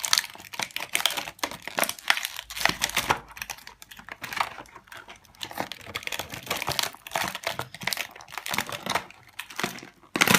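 Plastic toy packaging crinkling and crackling in irregular bursts of small clicks as tiny toy figures are worked out of it.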